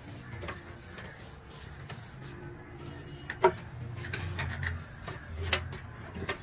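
Hand rubbing and smoothing wet mud plaster over a clay stove surface: a soft, rough scraping with a few sharp knocks, the loudest about halfway through and another near the end.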